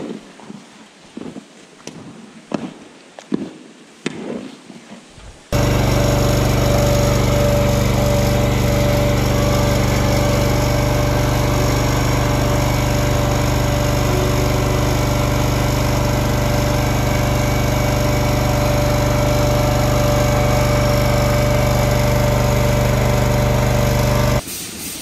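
A hand scraper scraping in short, uneven strokes across a concrete cow stall. About five seconds in this gives way to a loud, steady machine hum of constant pitch from a mobile calf milk feeder cart running while it dispenses milk through its hose; the hum cuts off just before the end.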